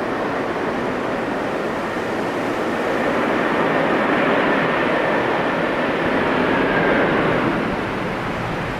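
Airbus A330-300's Pratt & Whitney jet engines rumbling on the landing rollout, the noise swelling about three seconds in and easing off near the end, with a faint high whine over it.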